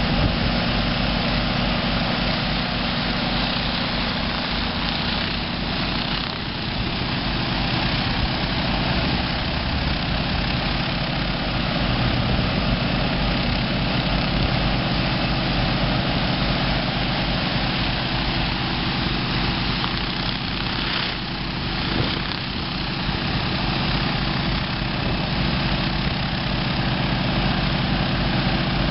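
Engine-driven 5000 PSI pressure-cleaning and vacuum-recovery unit running steadily: a constant engine drone under a strong hiss from the rotary surface cleaner's water jets on concrete and the recovery hose's suction.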